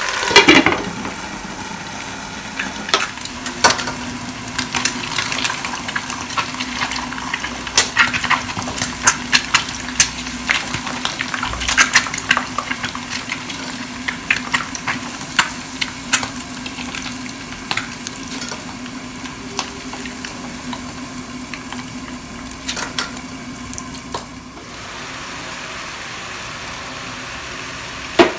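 Boiled eggs deep-frying in a small pot of hot oil: a steady sizzle with frequent sharp pops and crackles as the oil spatters, and a spatula stirring them. A glass lid clinks onto a wok at the start.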